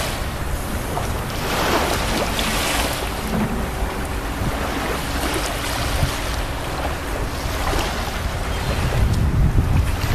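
Small waves washing onto a sandy beach, the noise swelling and easing every few seconds, with wind buffeting the microphone.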